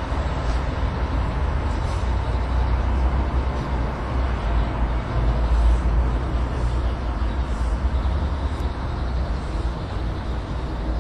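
Steady low rumble of traffic on a busy road.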